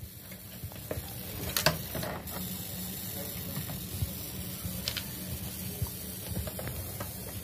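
Light handling of a multimeter and its test probes over a powered circuit board: a few sharp clicks, one about a second and a half in and another about five seconds in, over a low steady hum.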